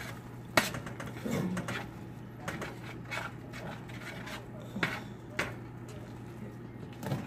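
A spoon scraping through baked chicken dressing and clinking against the sides of a metal baking pan, several sharp clinks with softer scraping between them, over a steady low hum.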